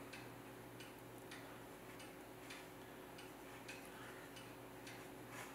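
Near-silent room tone with faint, regular ticks, about two a second.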